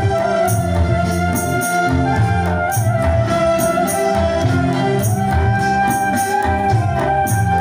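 Live band music: a hand drum set (gendang) played with bare hands keeps a steady beat under a bass guitar line, electric guitars and a sustained flute melody.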